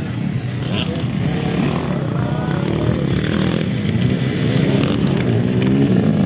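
Motocross dirt bike engines revving as riders pass on the dirt track. The pitch rises and falls with the throttle, and it gets a little louder near the end as a bike comes close.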